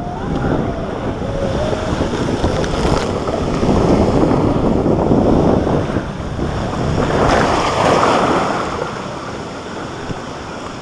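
Rushing water and wind buffeting the camera's microphone on a waterslide ride. The rush swells twice, loudest a few seconds in and again about three-quarters of the way through.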